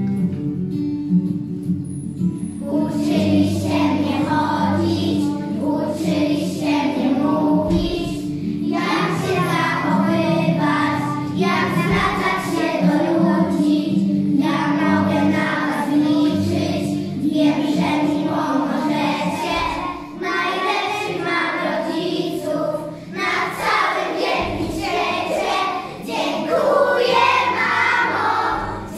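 A group of young children singing a song together over instrumental accompaniment. The accompaniment plays alone for the first couple of seconds, then the children's voices come in.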